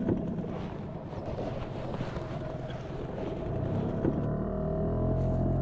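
HDX 5 hp outboard motor on an inflatable boat running at low speed, its pitch climbing a little about four seconds in, with wind on the microphone.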